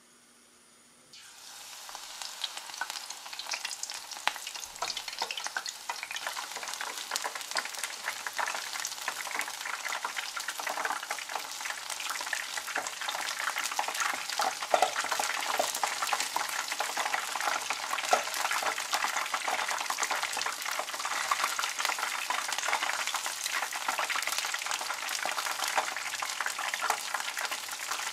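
Batter-coated acacia flower clusters deep-frying in hot oil: a dense sizzling and crackling that starts suddenly about a second in and carries on steadily.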